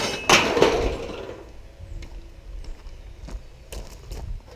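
Pieces of light iron scrap clanking as they are tossed onto a scrap pile. A loud clatter a moment in rings off for about a second, then a few light knocks come near the end.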